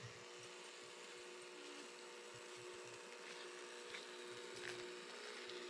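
Faint background hiss with a steady low hum and a few faint clicks.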